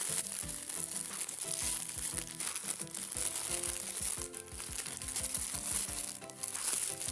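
Plastic bubble wrap crinkling as it is handled and unwrapped, over background music with a beat.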